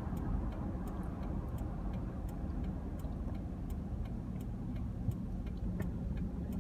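Car cabin noise while driving: a steady low engine and road rumble, with a light, regular ticking about three times a second.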